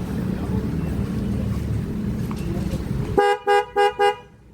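A pair of Denso waterproof horns on a Honda CB150X motorcycle toots four times in quick succession about three seconds in. Before the toots there is a loud, steady low rumble that cuts off suddenly just as they start.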